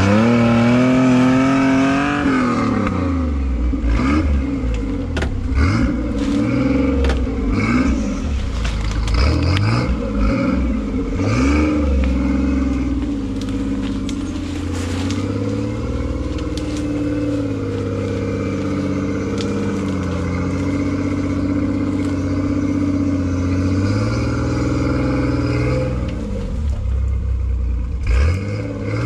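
Nissan-based rock crawler's engine running and revving up and down as the rig crawls off-road, with scattered knocks and scrapes throughout.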